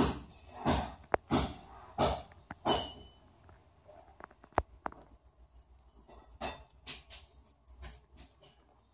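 A mother cat nursing her kittens: short noisy pulses repeating about one and a half times a second, fading after about three seconds and coming back near the end, with a few sharp clicks in between.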